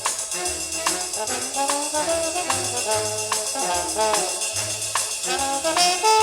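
Instrumental passage of a 1978 samba rock record: held horn notes over a moving bass line and a steady tambourine beat.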